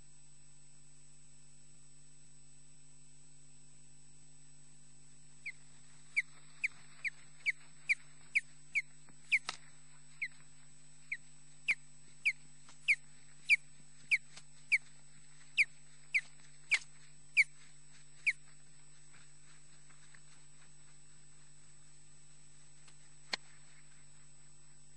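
A bird calling: a series of about twenty short, sharp, downward-slurred chirps, roughly two a second, that stops after about thirteen seconds. A steady electrical hum runs underneath.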